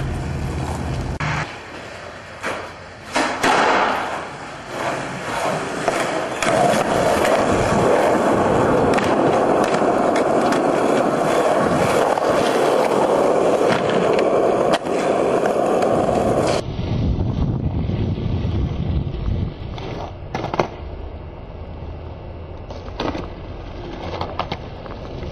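Skateboard wheels rolling over rough asphalt in a loud, steady grind, with sharp clacks of the board hitting the ground in the first few seconds. About two thirds of the way through the sound cuts to a quieter roll with a few more clacks.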